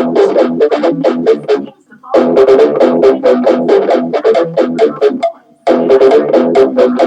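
A short instrumental ringtone loop with a buzzy tune over a quick, sharp beat. It plays through, breaks off briefly, plays again, and starts a third time near the end.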